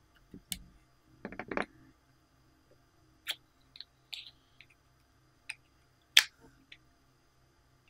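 Fingers pressing slime in a glass dish give a short run of soft squelches about a second in. Then come a handful of sharp plastic clicks and taps as a popsicle-shaped plastic slime container is picked up and handled, the loudest about six seconds in.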